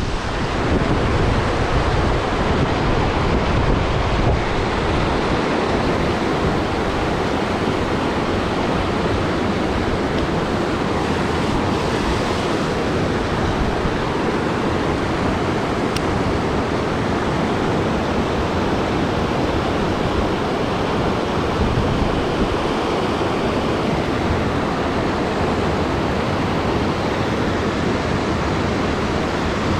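Mountain creek water rushing steadily, with wind buffeting the microphone in the first few seconds.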